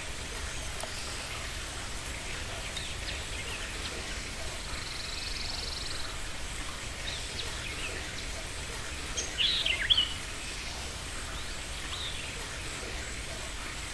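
Steady low hum under scattered short, high chirps, with a brief louder cluster of chirps about nine and a half seconds in.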